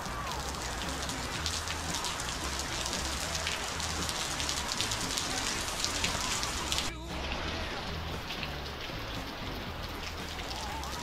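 Rain falling steadily, with many individual drops pattering close by. The sound dips for a moment about seven seconds in and comes back with less hiss.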